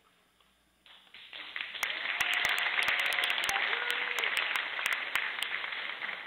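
Audience applause, starting about a second in, right after the dance music stops, and holding steady.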